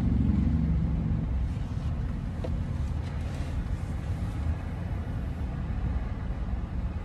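Steady low rumble of an SUV heard from inside its cabin, engine and road noise with no other distinct event.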